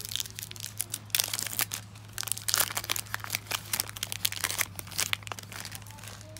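Foil trading-card pack wrapper crinkling as it is torn open and handled, a dense run of crackles that thins out near the end.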